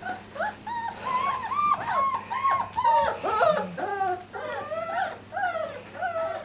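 Five-week-old poodle puppies whining and whimpering: a quick run of short, high-pitched cries, about three a second, some overlapping.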